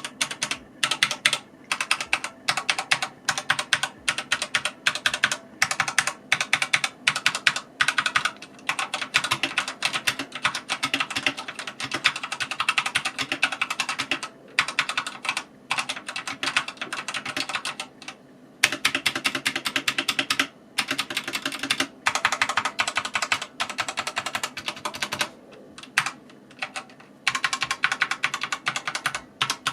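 Keys of a Redragon K552 mechanical keyboard being typed on in fast, continuous runs of clacks, with a few short pauses between runs.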